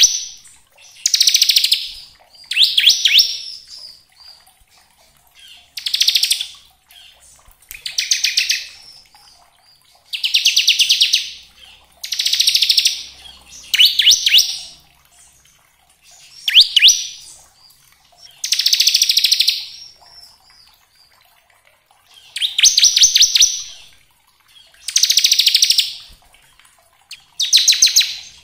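Bar-winged prinia (ciblek) singing its 'ngebren' song: a string of about a dozen loud, high-pitched rattling trills, each about a second long, made of very fast ticking notes, repeated every two seconds or so with short pauses between.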